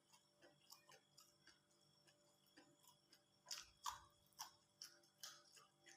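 Faint, close-up mouth sounds of someone eating: scattered soft wet clicks and smacks of chewing, with a cluster of louder ones from about three and a half seconds in.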